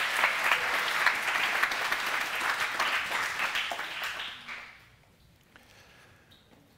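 Congregation applauding, the clapping dying away about four to five seconds in.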